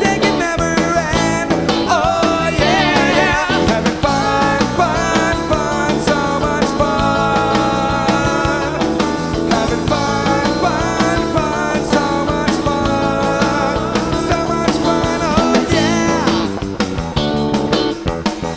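A rock band playing live: electric guitar, bass and drums, with a bending melodic line over them.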